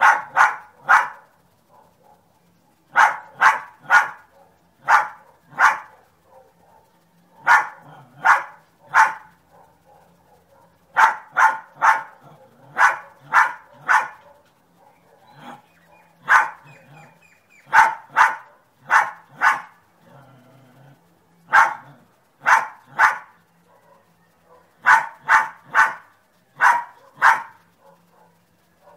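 Small dog barking over and over: sharp barks in quick runs of two to four, with pauses of a second or two between runs.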